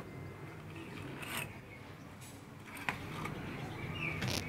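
Slicker brush raking through a puppy's coat: a few short, faint scratchy strokes about a second and a half in, near three seconds and near the end, over a low steady hum.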